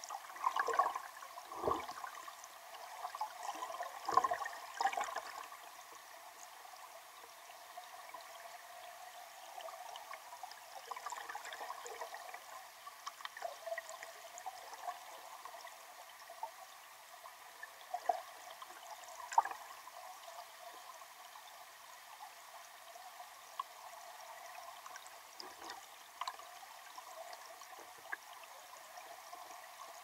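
Mountain river water plunging over rocks and churning with bubbles, heard from underwater: a steady muffled rushing with sharp bubbly pops and knocks, most of them in the first five seconds and a couple more later on.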